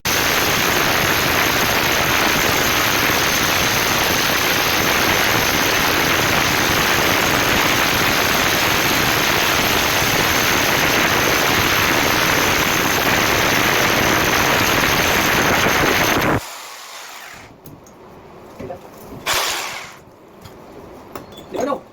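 Electric drill driving a 65 mm concrete hole saw into a masonry wall: a steady cutting noise with a high motor whine, which stops abruptly about 16 seconds in.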